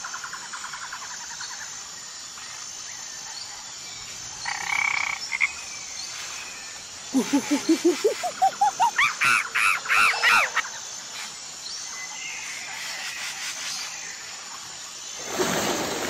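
Forest ambience with a steady high insect drone. A short call comes about five seconds in, then a fast series of pulsed animal calls climbs steadily in pitch and peaks in loud, high arching calls.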